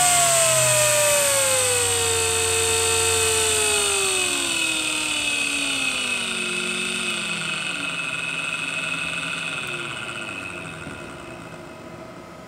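EBM-Papst 8212J/2H4P high-speed 12-volt PWM fan spinning down from full speed as its power is cut back to zero: the blade whine slides steadily down in pitch and fades, leaving only a faint air rush near the end.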